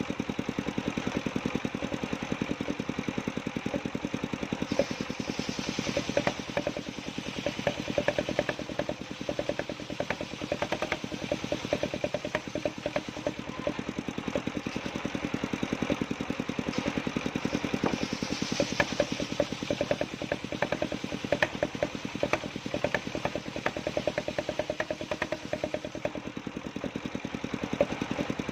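Engine of a portable circular sawmill running steadily with a fast, even beat, with a few brief stretches of harsher, higher-pitched noise over it.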